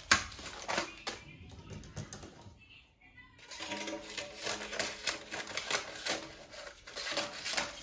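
A quick, uneven run of light clicks and taps from kitchen utensils against a baking mould.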